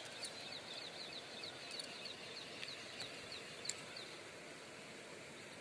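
A bird repeating short, high, falling notes about four times a second, fading out after about four seconds, over faint steady outdoor background noise with a few light clicks.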